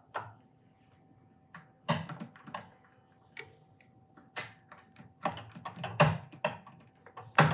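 Irregular metallic clicks and knocks, about a dozen, from a hand working the wiggler center-finder and spindle of a milling machine. The loudest come around two seconds in and near the end, over a faint steady hum.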